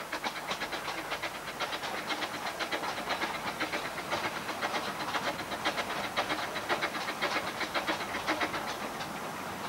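Narrow-gauge steam tank locomotive running toward the listener with its coaches, giving a quick, even beat that grows louder as it nears.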